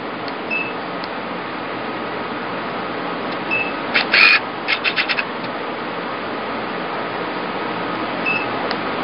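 IPL (E-light) hair-removal handpiece of a MED-230 machine firing, about four seconds in: a loud snap, then a quick run of about five clicks. Short high beeps come from the machine a few times, over a steady hiss.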